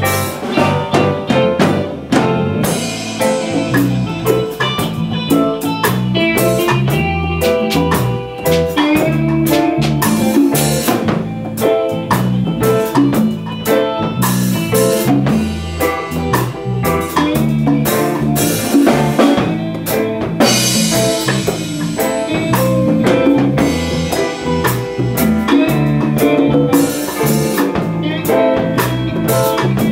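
A band playing live in rehearsal: a drum kit driving a steady beat under amplified instruments, with bright cymbal crashes at several points.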